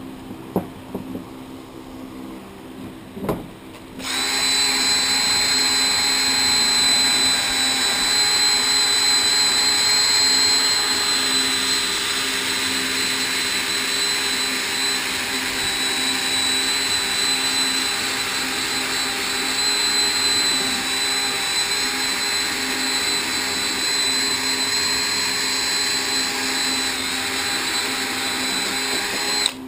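Makita cordless drill spinning a wire brush inside a brake caliper's cylinder bore to clean it, running steadily with a constant whine from about four seconds in until just before the end. A few light knocks come before it starts.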